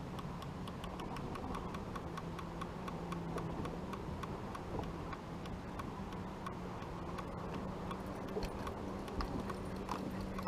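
Electric bow-mount trolling motor running with a low steady hum that shifts slightly in pitch, with light, irregular ticking over it a few times a second.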